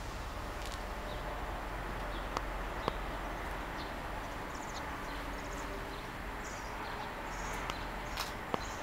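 Outdoor ambience: a steady background hiss with a few sharp clicks and short, faint high chirps in the second half.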